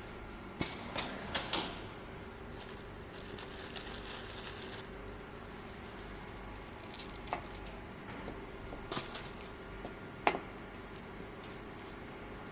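Soap stretch-film wrapping machine running with a steady hum, with sharp mechanical clicks and clacks: three in the first two seconds, then a few more between about seven and ten seconds in.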